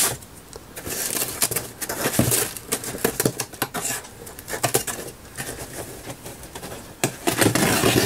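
A utility knife cutting along the packing tape on a cardboard box: irregular scratching, clicking and scraping of blade, tape and cardboard, louder near the end as a flap is pulled open.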